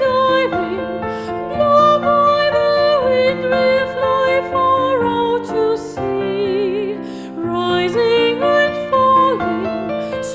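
Gentle background music: a slow melody over held chords, with one wavering note a little past the middle.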